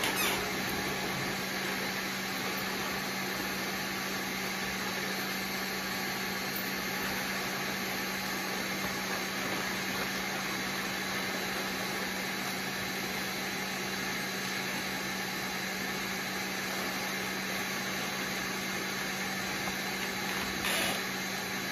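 Fresh-air respirator blower running steadily, pushing air down its hose: an even rush of air over a low steady hum, briefly louder near the end.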